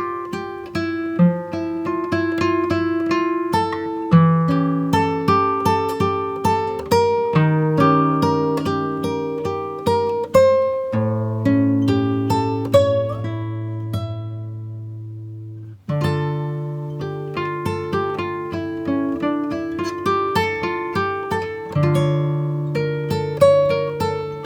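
Background music of picked acoustic guitar: a steady run of plucked notes. About halfway through, a chord is left to ring and fade out for several seconds before the picking starts again.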